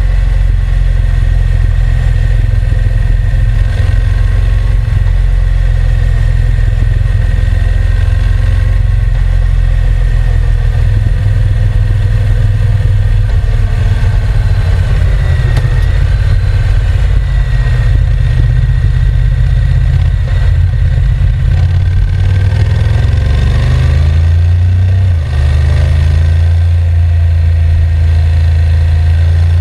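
Honda NC750X motorcycle's parallel-twin engine running steadily, its pitch shifting and its level dipping briefly near the end.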